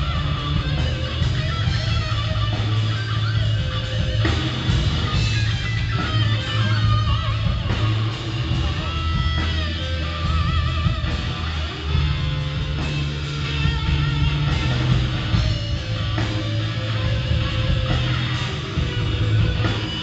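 Live blues band playing loudly: electric guitar over bass and drums, with bent, wavering guitar notes.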